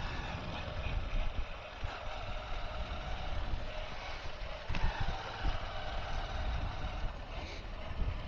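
Wind buffeting the microphone in uneven low gusts over a steady hiss, a little stronger about five seconds in.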